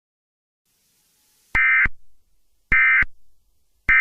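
Emergency Alert System digital data tones (SAME end-of-message bursts) closing the alert: three short, identical buzzy bursts about a second apart, starting about a second and a half in, the last one just at the end.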